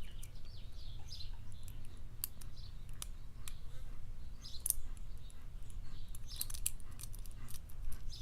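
Lock pick and tension wrench working the pin stack of a Carbine padlock: faint, scattered metallic clicks and small scratches, over a low steady hum.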